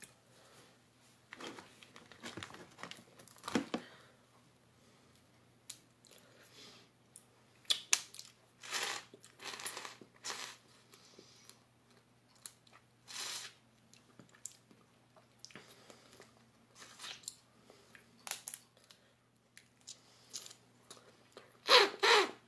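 Close-up eating sounds of boiled lobster: shell being cracked and torn apart and meat being chewed, in short irregular crackles and clicks with quiet gaps between, the loudest cluster near the end.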